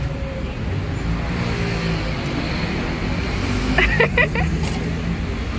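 Road traffic passing close by: a steady low rumble of car engines and tyres, with a few short, sharp higher sounds about four seconds in.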